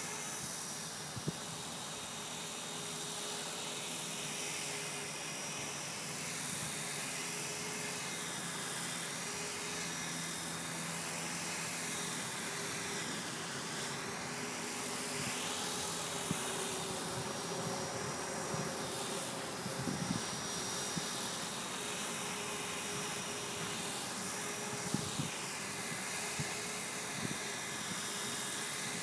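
E-flite Blade 450 electric RC helicopter hovering, its motor and rotor making a steady high whine whose pitch wavers up and down as it holds position.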